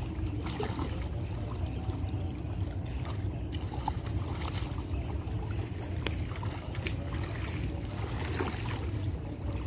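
Steady low rumble of wind on the microphone over the slosh of pond water stirred by people wading with a seine net, with a few small sharp splashes or knocks.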